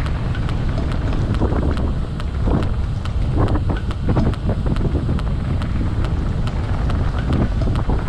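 Wind buffeting the microphone during an electric mountain bike descent, over a steady low rumble, with irregular clattering of the tyres and bike over the trail.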